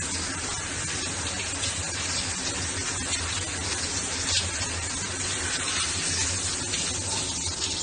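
A steady, even rushing noise, unchanging throughout.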